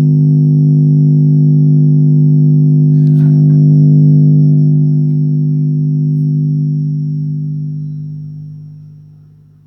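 A song playing through a JBL Xtreme portable Bluetooth speaker ends on one long, deep, steady tone. It holds level for several seconds, then fades out over the last few seconds.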